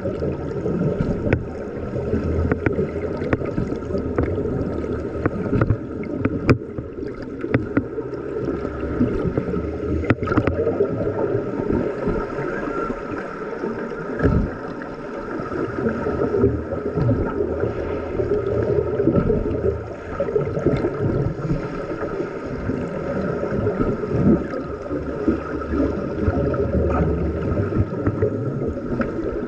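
Muffled underwater churning and bubbling of pool water stirred by finned swimmers, heard through a submerged camera, with scattered sharp clicks.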